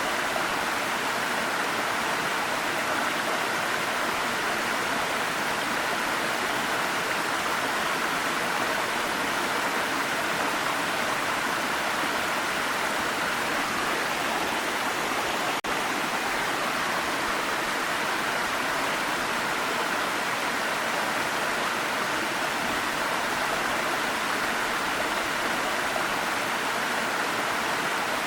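Waterfall: a steady, even rush of falling water, with a momentary dip about halfway through.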